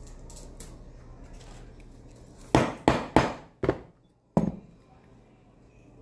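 Five sharp metallic knocks, steel tools struck on steel while sharpening cuticle nippers at a metal workbench. Four come in quick succession about two and a half seconds in, and the fifth follows alone about a second later.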